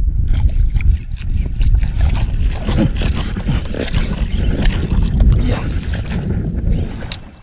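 Wind buffeting the camera microphone on a small boat at sea, with clicks and rattles from a spinning reel and jigging rod being handled and reeled. It fades near the end.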